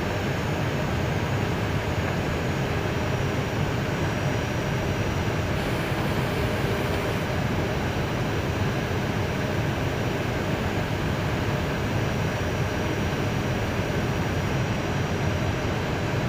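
Steady cockpit noise of an Airbus A320 taxiing: an even rush with a low hum, no distinct events.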